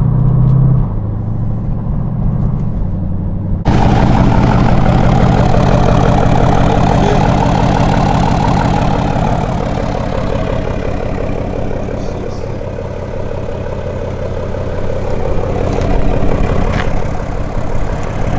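SUV engine running, first heard muffled from inside the cabin as a low steady hum. About four seconds in it cuts to the same kind of engine idling heard in the open, louder and fuller.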